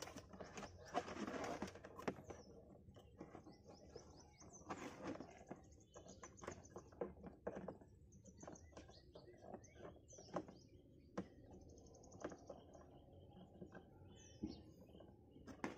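Faint handling noise of a plastic trunk lamp and its wire being worked into boot-lid trim: scattered light clicks and rustles. Birds chirp in the background.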